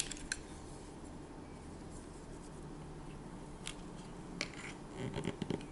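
A few faint clicks and taps from a small plastic plunger cookie cutter being handled and pressed into soft dough, over quiet room tone, with a small cluster of clicks near the end.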